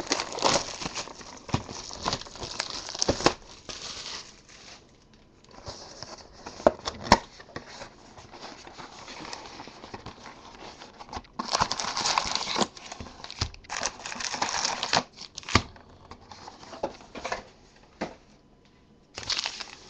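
Plastic wrapping on a trading-card box and its packs being torn open and crinkled by hand, in irregular spells of rustling with sharp crackles and short pauses between.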